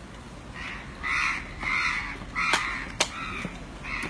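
Crows cawing, a run of about six harsh caws one after another, with two sharp clicks near the middle.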